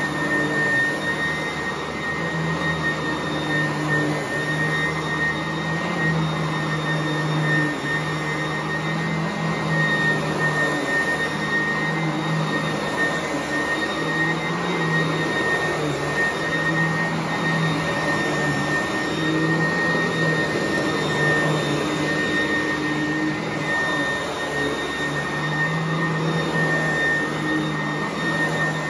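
Sanitaire vacuum cleaner running continuously while vacuuming carpet: a steady rush of air with a constant high whine, and a low motor hum that swells and eases as it is worked across the floor.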